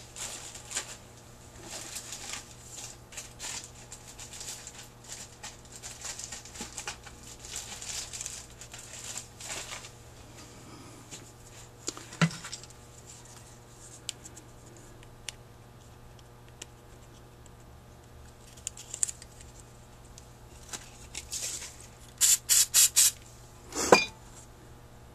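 Hands handling a paper carburetor gasket and its paper and plastic packaging: soft rustling and crinkling, with scattered light clicks of small metal carburetor parts. A quick run of sharp taps comes near the end, then a single louder knock, over a faint steady low hum.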